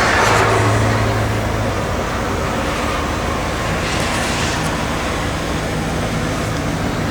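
Motor vehicle engine running with steady road noise: a constant low hum under an even rushing sound, swelling slightly about four seconds in.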